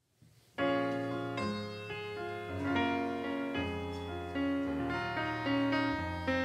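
Piano playing a slow introduction of sustained chords, coming in about half a second in.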